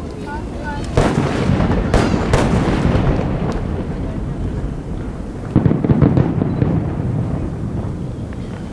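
Aerial fireworks bursting over a lake: a sharp boom about a second in, two more close together around two seconds, then a louder cluster of bangs with crackling past the middle, all over a continuous low rumble.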